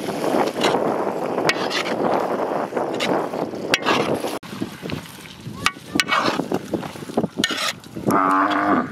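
Potatoes and meat sizzling in a large metal kazan while a metal ladle scrapes and clinks against the pot, the sizzle loudest in the first half. Near the end a cow moos briefly.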